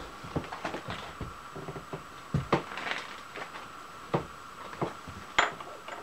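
Several light metallic clinks and knocks as a metal round bar and tools are handled on a milling machine's steel table, the loudest about five and a half seconds in, over a steady hum.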